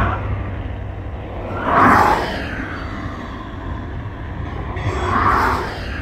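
Distant Lockheed P-3 Orion's four turboprop engines rumbling, the sound swelling and fading, loudest about two seconds in and again about five seconds in.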